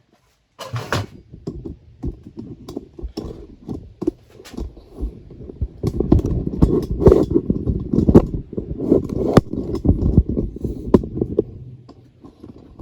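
Close handling noises: rubbing and rustling with many light knocks and clicks. They thicken and grow louder from about six seconds in, then thin out near the end.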